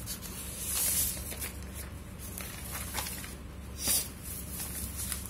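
Notebook paper rustling as a page of a spiral notebook is turned and smoothed by hand, with two louder swishes, about a second in and near four seconds.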